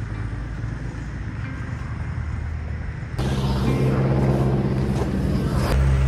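Road traffic noise from passing cars over a steady low hum. About three seconds in, a louder rush of car noise starts suddenly and cuts off abruptly shortly before the end.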